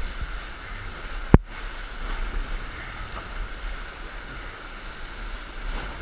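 Whitewater rapids rushing and splashing around an inflatable raft, a steady wash of water noise. A single sharp knock about a second and a half in.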